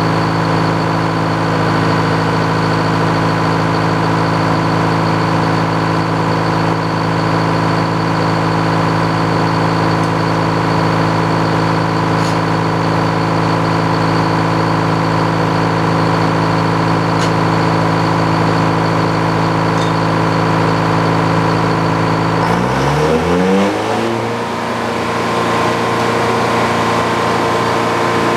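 Sawmill's power-unit engine running steadily, then revving up over about a second late on and holding at a higher speed.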